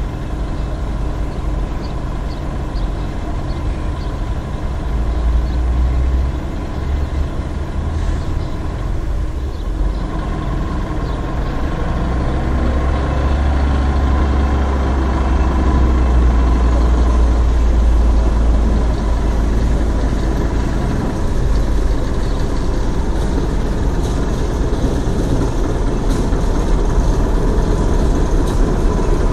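Small narrow-gauge diesel shunting locomotive's engine running, idling at first, then growing louder and heavier about midway as the locomotive gets under way.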